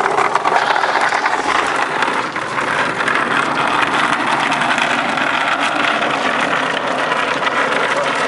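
A homemade wooden boat towed on a rope behind a truck, scraping and rattling over the ground in a loud, steady, rough noise, with the vehicle's engine running.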